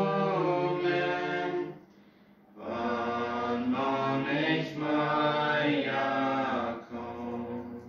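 Voices singing a Plautdietsch hymn, holding long notes. They break for a breath about two seconds in, then sing on, softer near the end.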